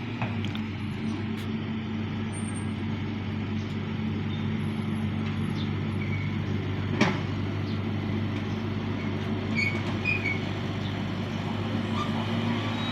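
Excavator's diesel engine running steadily with an even low drone, and a single sharp clank about seven seconds in.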